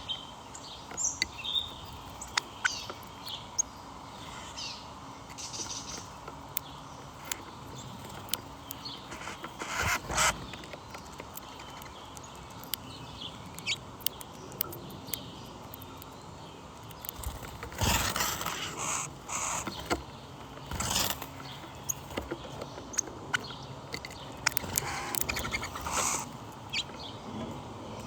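Birds chirping and calling, with many short high notes, and a few louder rushes of noise about ten seconds in and again later on.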